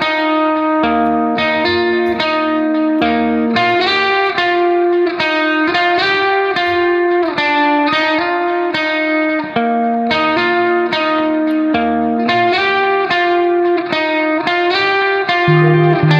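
Background music: a guitar picking a steady melody of plucked notes.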